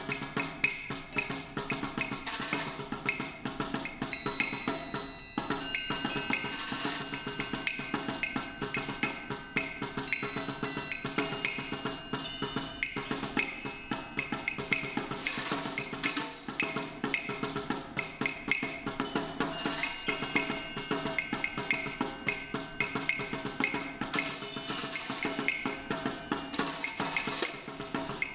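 A percussion quartet on small hand-held instruments playing a dense, continuous stream of quick taps and clicks, with tambourine jingles and some held ringing metallic tones over them.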